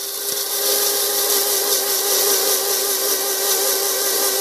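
Electric mixer grinder (mixie) running at a steady speed, grinding in its jar: a steady motor whine over a loud whirring, grinding noise.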